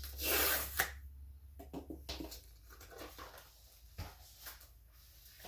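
Mail packaging being handled and opened: a loud half-second rustle of paper or packaging near the start, then a sharp click, scattered lighter rustles and clicks, and a knock about four seconds in.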